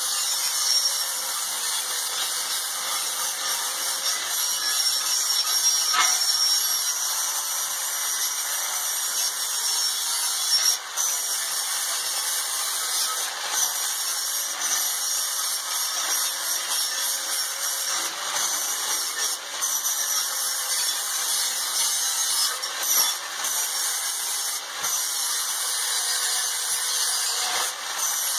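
Handheld angle grinder grinding the edge of a steel cylinder, the shell of a gas forge, with a steady hiss and a few brief dips as the disc comes off the metal.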